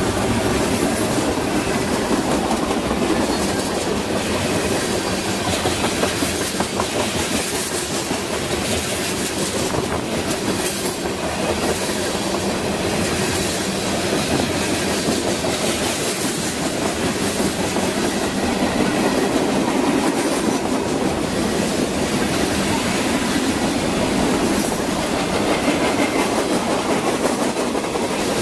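Freight cars of a long mixed freight train rolling past, a steady rumble with the wheels clicking over the rail joints.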